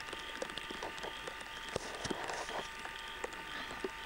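Light rain pattering: irregular soft ticks over a steady hiss, with a faint steady electrical hum beneath.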